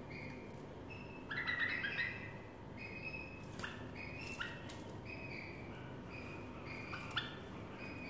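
Several juvenile bulbuls calling in a cage: short, repeated chirps, with a louder burst of chattering about a second and a half in.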